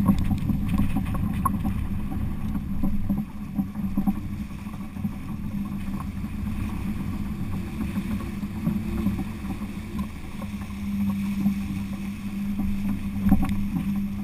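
Water rushing and splashing along the hull of a Laser II sailing dinghy under way, with a steady low hum underneath and a few knocks near the end.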